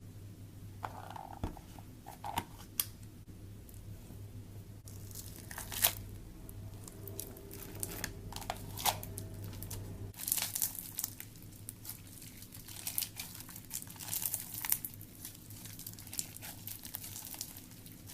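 Slime being worked by hand, giving irregular crackles, pops and crinkly tearing sounds, denser in the second half.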